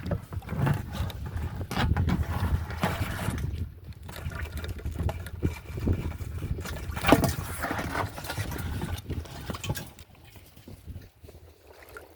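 Water sloshing and splashing with irregular knocks and handling noise, and one sharp knock about seven seconds in.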